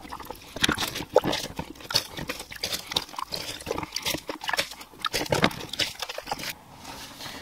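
A wet sponge soaking up the last water from the bottom of an emptied toilet tank and being squeezed out, with irregular short squelches and splashes of dripping water.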